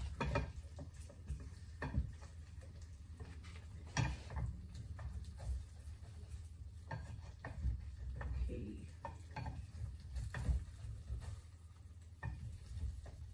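Wooden spatula scraping and tapping in a stainless steel frying pan in short, irregular strokes, working loose an omelette whose base is sticking to the pan. A low steady hum runs underneath.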